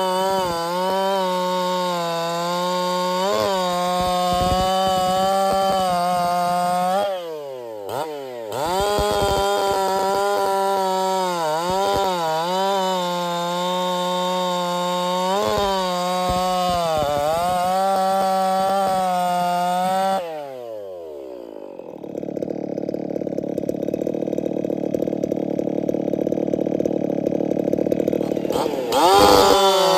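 Echo two-stroke chainsaw with .325 chain running at full throttle and cutting through a log, the engine pitch dipping under load in each cut and rising again between them. About twenty seconds in the engine winds down, leaving a duller steady noise, and near the end it revs up again.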